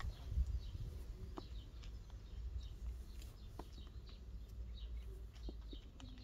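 Small birds chirping in short, scattered calls, with a few faint clicks and a low rumble in the first moment.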